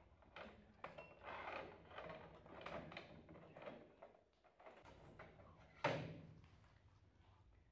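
Metal motorcycle front fork leg being handled and slid into place: soft scraping and rubbing of the tubes, then one sharp metal clunk about six seconds in.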